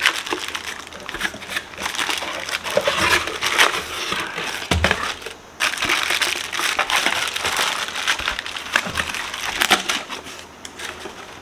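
Plastic packaging bags crinkling and rustling, with cardboard packing scraping, as wrapped parts are handled and lifted out of a cardboard box; a soft knock about five seconds in.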